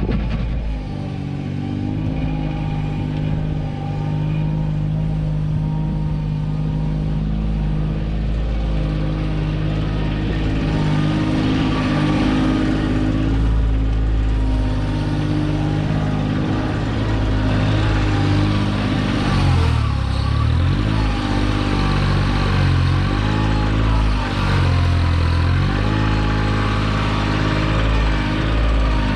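Kioti 2610 compact tractor's engine running steadily at working speed while its backhoe digs, with a hiss over it. The pitch sags and recovers several times about two-thirds of the way through, as the engine is loaded.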